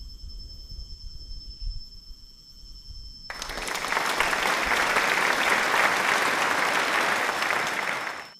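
Applause: a dense clapping that starts suddenly about three seconds in and cuts off abruptly at the end, over a low rumble of wind on the microphone.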